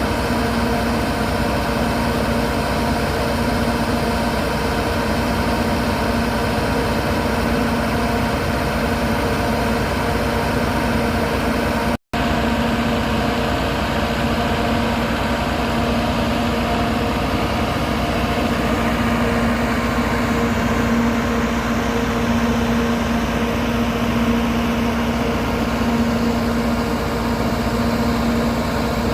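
Alishan Forest Railway train running, a steady engine drone with a constant low hum. It breaks off for an instant about twelve seconds in.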